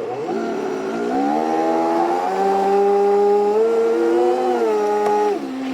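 Sailboat's small outboard motor running under throttle: it revs up over the first second, holds steady, rises a little more, then drops back sharply near the end.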